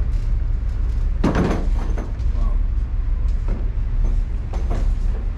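Steady low machinery hum aboard a river cruise ship, with one dull knock about a second in and a few fainter knocks and voices later.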